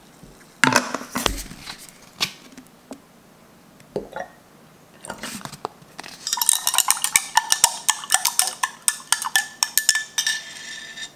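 A metal straw stirring iced coffee in a glass tumbler: a fast run of clinks against the glass, lasting about four seconds in the second half. It follows a few scattered knocks and clicks.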